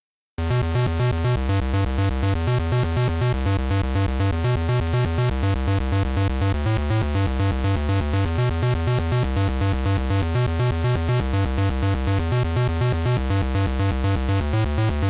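Electronic synthesizer music with a steady, evenly pulsing beat, starting about half a second in.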